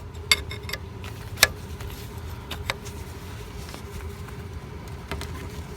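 A few sharp metallic clicks and taps of wrenches working a coolant hose fitting, most of them in the first second and a half and a couple more near the end, over a steady low background hum.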